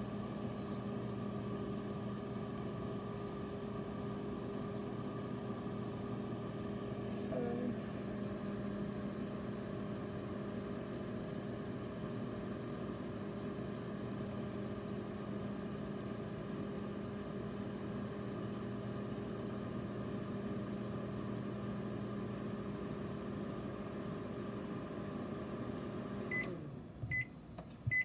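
Panasonic Genius Sensor 1250W microwave oven running with a steady hum as it heats. The hum stops suddenly near the end, followed by short beeps signalling that the timed cycle has finished.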